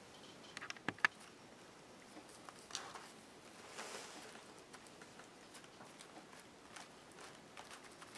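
Soft, faint dabbing and scraping of a flat brush spreading tacky glue over a paper book page, with a few sharp clicks about a second in.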